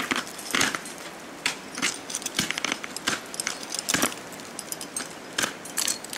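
Steel crampon front points kicking and scraping into hard ice in a series of irregular sharp crunching strikes, with some metallic clinking, as the climber front-points on steep ice.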